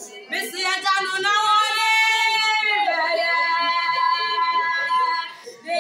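A voice singing a worship song in long held notes: one note drawn out for over two seconds, then a lower one held for about as long, with a short break near the end before the next phrase.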